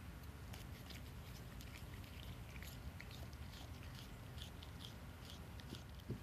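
A house cat chewing blades of cat grass: a run of short, irregular, crisp crunching clicks. One brief thump near the end.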